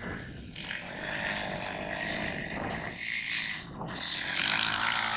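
Dirt bike engines running as several motocross bikes ride the track, growing louder about four seconds in.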